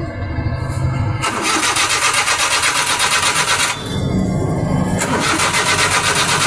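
Suzuki F6A 12-valve three-cylinder engine cranked by its starter in two long attempts, with a short break between them. It turns over evenly but does not catch: a hard-starting engine.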